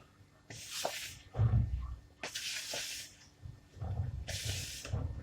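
Spoon stirring flour into a soft wet dough in a mixing bowl: three scraping strokes about two seconds apart, with low knocks of the spoon and bowl between them.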